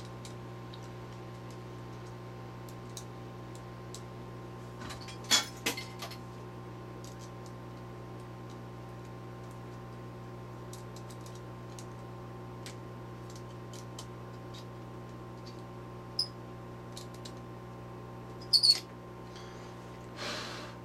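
Small metallic clicks and taps over a steady hum as the nozzle on a hot air rework station is changed for a smaller one. A few clicks are louder, about five seconds in and twice near the end, and a short hiss comes at the very end.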